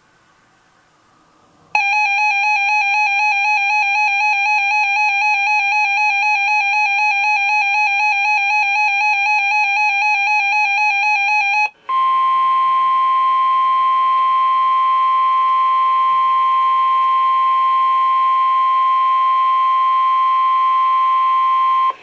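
A weather radio receiver's alert alarm sounds for about ten seconds: a fast-warbling electronic tone that pulses about four times a second. After a brief break, the steady 1050 Hz NOAA Weather Radio warning alarm tone plays for about ten more seconds. Together they signal a tornado warning activation, here a practice warning for a statewide drill.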